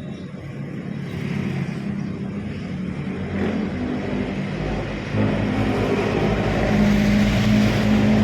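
An engine running steadily and growing louder, with a low drone of several pitches that is strongest near the end.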